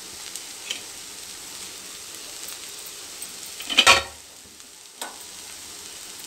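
Ponnaganti greens and chana dal fry sizzling faintly in the pan with the stove just turned off. About four seconds in, a utensil clatters loudly against the pan with a brief metallic ring, and a small click follows a second later.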